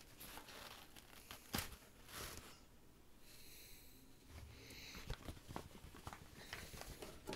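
Faint rustling and crinkling of a sheer organza drawstring bag being handled and opened, with a sharp click about a second and a half in and a few light taps near the end.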